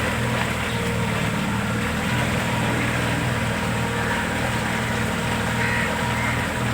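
Boat motor running steadily at a constant speed, a low even drone.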